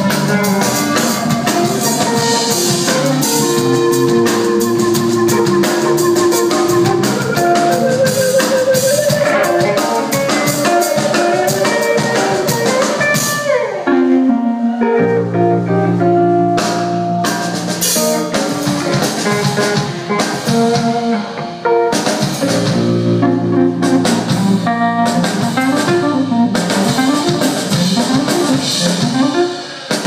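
A live band plays an instrumental passage on drum kit, acoustic guitar and electric bass. About 13 s in, a note slides a long way down in pitch and the cymbals drop out for a moment. The drums and bass then come back in.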